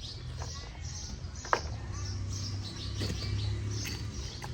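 A heavy diesel engine running steadily at low revs, with small birds chirping repeatedly over it and a single sharp click about a second and a half in.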